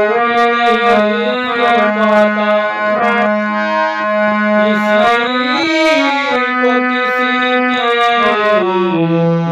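Harmonium playing a slow melody in sustained, reedy notes over a held lower note, which steps down to a lower pitch near the end.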